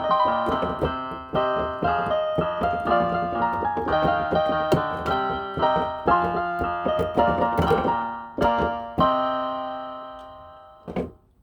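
Budget electronic keyboard played with a piano voice: a run of single notes and chords, ending on a held chord that fades away over about two seconds. A short thump follows near the end.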